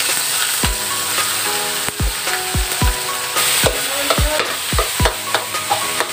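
Crab meat mix sizzling in oil in a large metal wok while a metal spatula stirs and scrapes it against the pan. Background music with a beat plays underneath.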